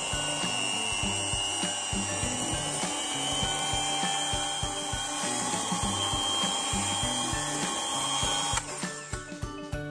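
Electric hand mixer running steadily with a thin whine, its beaters churning thick cake batter in a glass bowl; it switches off abruptly near the end. Background music plays underneath throughout.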